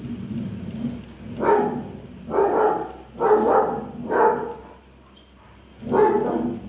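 A dog barking: five loud single barks, the first four about a second apart, then a pause before the fifth.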